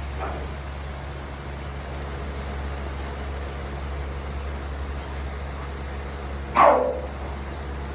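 Steady low hum of an electric fan, with one short, loud dog bark falling in pitch about six and a half seconds in and a fainter one at the start.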